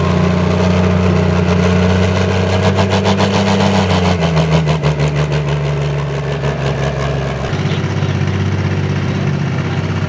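Pro stock pulling tractor's diesel engine running at low revs as the tractor drives off, its note dropping about four seconds in. Near the end, after a cut, a different pulling tractor's engine is idling.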